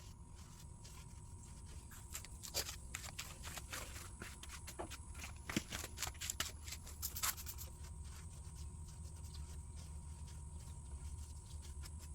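Faint, irregular clicks and scrapes of metal tools and parts being handled during rear axle seal work, most of them between two and eight seconds in, over a low steady hum.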